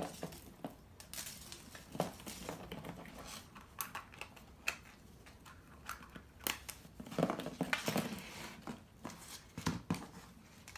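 Hollow plastic Easter eggs being handled and threaded onto a ribbon: irregular light clicks and taps of plastic on plastic and on the tabletop, with some rustling.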